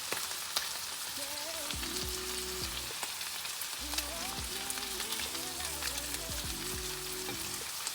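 Food sizzling and crackling in a frying pan, steady throughout, under a pop song's melody.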